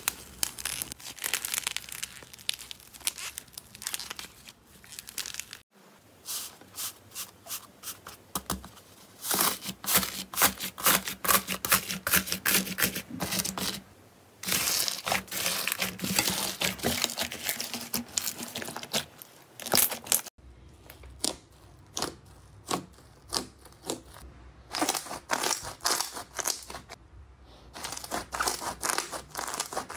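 Hands squeezing and pressing slime and modelling clay, making dense runs of crackling, crinkling and sticky popping. The sound changes several times, with short quiet breaks between; the middle stretch is foam-bead slime crunching.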